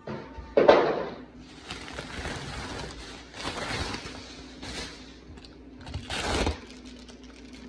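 Plastic film and cardboard packaging on a new portable washer rustling and crinkling in several irregular bursts, the loudest a sharp burst just under a second in.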